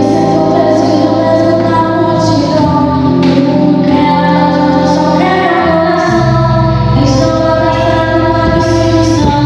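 Portuguese-language gospel worship song: female voices singing held, sustained notes over instrumental backing.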